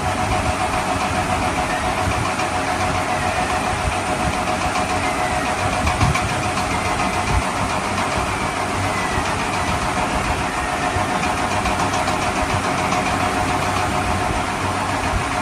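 Steady engine-running sound of a car idling, a fast even chug with a faint steady tone over it.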